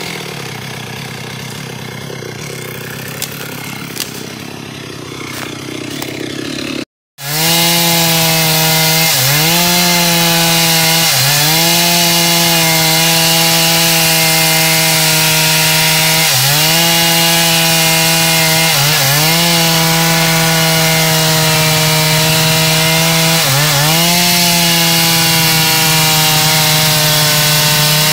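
Two-stroke chainsaw cutting into a teak trunk, quieter and rougher at first. After a short break about seven seconds in, it runs loud and steady at full throttle, its pitch dipping briefly and recovering several times as the chain bogs in the wood.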